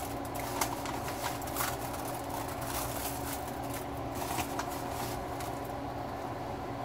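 Brown sugar being spread by hand in a disposable aluminium foil pan: a few light clicks and rustles in the first two seconds, over a steady low hum.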